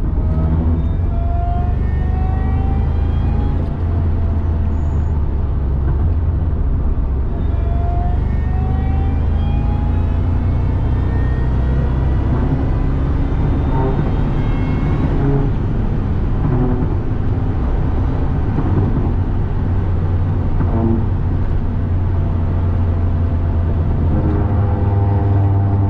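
2002 Ford F-150 SVT Lightning's supercharged 5.4-litre V8 pulling hard. A steady low engine drone runs under a supercharger whine that climbs in pitch through each pull, several times over.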